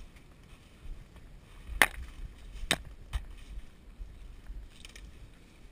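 Three sharp cracks, the first the loudest, within about a second and a half, then a brief rustle of leaves and brush.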